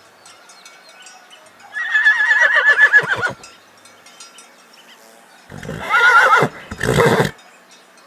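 Horse neighing: a long, trembling whinny about two seconds in, then a second, shorter call in two parts about five and a half seconds in.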